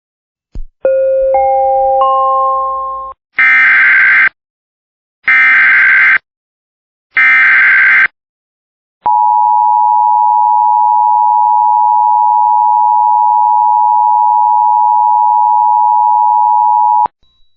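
Emergency Alert System activation: a rising three-note chime, then three SAME header data bursts of about a second each, then the EAS two-tone attention signal (853 and 960 Hz), held steady for about eight seconds. Together they signal the start of an emergency alert broadcast.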